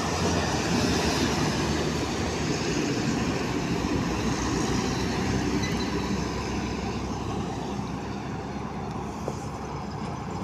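Steady rumble of highway traffic: heavy diesel trucks' engines and tyres running on the road, easing off a little near the end.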